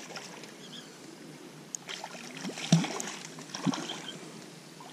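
Landing net moving in shallow water, with light sloshing and a few soft splashes.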